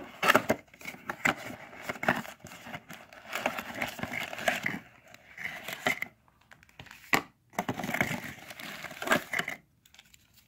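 A thin plastic accessory bag crinkling and rustling in irregular bursts, with a few sharp clicks, as a dash cam mount and cable are pulled out of it and out of a cardboard box. The handling noise stops shortly before the end.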